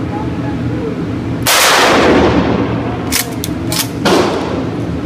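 A 12-gauge Mossberg 500 pump shotgun fires a rifled slug about one and a half seconds in: one loud blast that echoes and dies away over about a second. A few sharp clacks follow, then another shorter bang about four seconds in, over a steady low hum.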